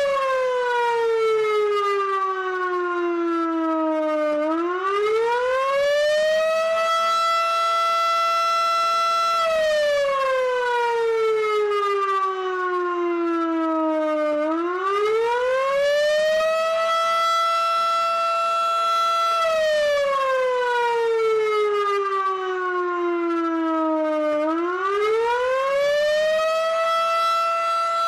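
Federal Signal Model 5A fire siren wailing through about three cycles. In each, the pitch slides down for about four seconds, climbs back up and holds steady for a couple of seconds before falling again. The sound is harsh and distorted from clipping, with the microphone almost directly under the siren.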